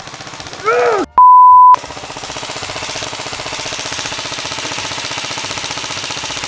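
UTG Model 4 Tactical electric airsoft rifle firing on full auto, its metal-geared gearbox cycling in a rapid, steady rattle. About a second in, a short yell is cut by a loud one-tone censor beep, and then the full-auto fire runs on unbroken.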